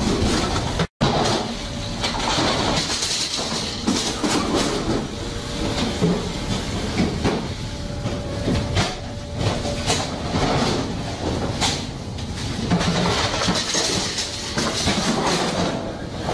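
Loud, steady din of a fish-processing line's machinery, with conveyors and a packing machine running and repeated clattering knocks throughout. The sound drops out for an instant about a second in.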